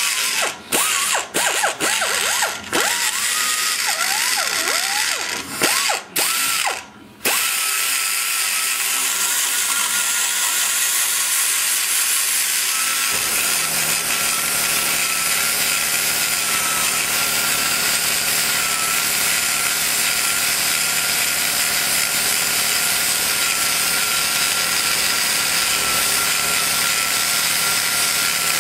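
Die grinder with a double cross-cut carbide burr cutting metal in the exhaust bowl of a small-block Chevy cylinder head. For the first seven seconds or so it stops and restarts several times in quick succession, its whine dipping in pitch each time. After that it runs steadily with a high whine and hiss.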